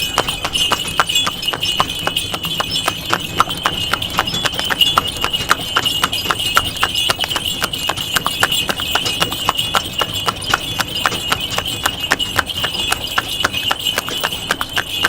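Horse drawing a cart, its hooves clip-clopping in a rapid, even rhythm, with a steady high ringing tone running under the hoofbeats.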